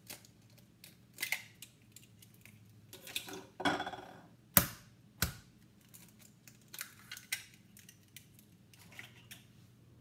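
Eggs being cracked into a glass bowl: sharp taps of shell against the glass, with the crackle of shells being pulled apart between them. The two loudest taps come about halfway through, under a second apart.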